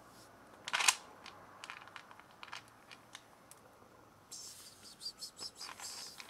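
Scattered sharp clicks close to the microphone, with a louder rustle about a second in and a stretch of soft rustling near the end. The sounds come from a kitten moving about and eating dry food from a plastic tub while a hand strokes its fur.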